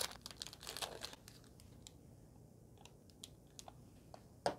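Faint, scattered light clicks and crinkles of a plastic seasoning sachet being handled and opened, with one sharper tick near the end.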